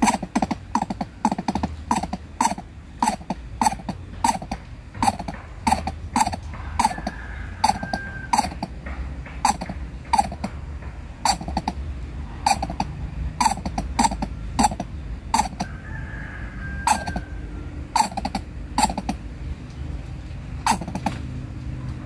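Coucal giving a long series of short, low calls, each with a sharp click. They come about two a second at first, then slower and uneven.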